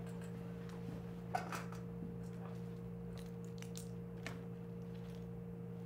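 Quiet room tone with a steady low electrical hum, broken by a few light clicks and taps of objects handled on a table, a cluster of them about a second and a half in and more near the middle.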